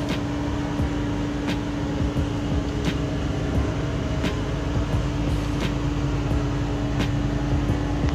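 A steady low mechanical hum with a light sharp tick repeating about every 0.7 seconds.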